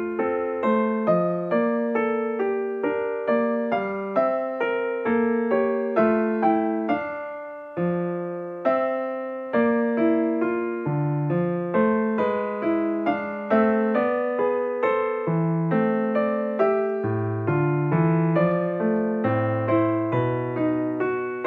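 Background piano music: a steady, even stream of notes.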